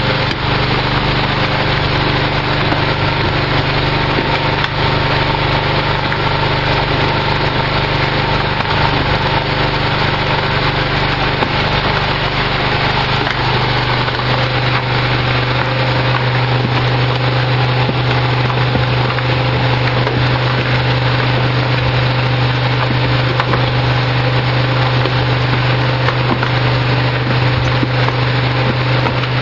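Cold-mix pothole-filler mixer running steadily: a constant low motor hum under a continuous gritty churning as the bitumen and aggregate are mixed.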